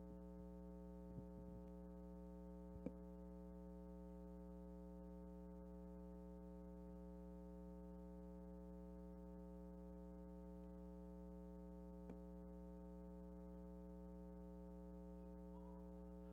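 Near silence under a steady electrical mains hum with a ladder of overtones, broken by a few faint clicks.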